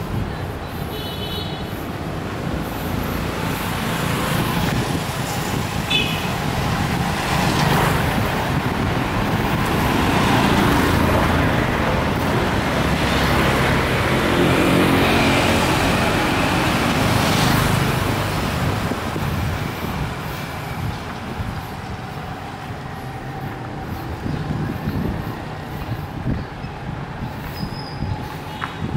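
Road traffic: a passing motor vehicle, its engine noise swelling over several seconds and fading again.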